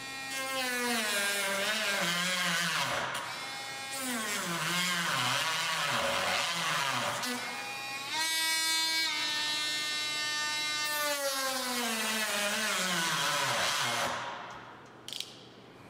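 Cordless Dremel rotary tool with a cutoff wheel cutting the edge of a clear plastic windshield. Its whine keeps sagging in pitch and picking up again as the motor bogs down under the cut, a sign it is not powerful enough and is stalling. It winds down about 14 seconds in.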